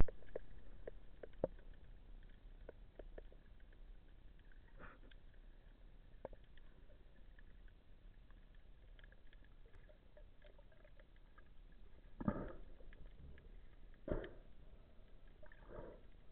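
Muffled underwater sound heard through a camera's waterproof housing: scattered faint clicks and taps, with a few louder, longer muffled rushes in the last few seconds.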